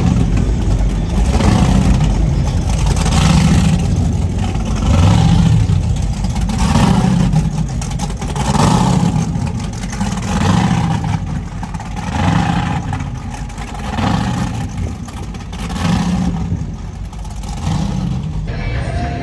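Loud high-performance boat engines revving in repeated surges, swelling and easing about every second and a half to two seconds.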